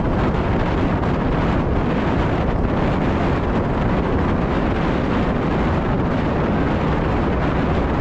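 Steady, loud wind rush buffeting the microphone of a camera riding along on a moving gravel bike.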